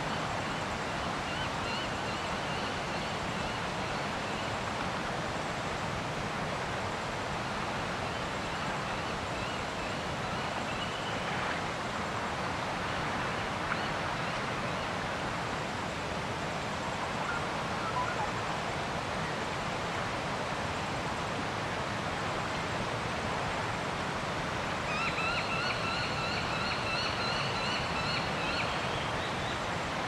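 Steady outdoor wind-and-water ambience on a reservoir shore. Faint bird calls come through early on, and a bird gives a louder run of rapid, evenly repeated notes near the end.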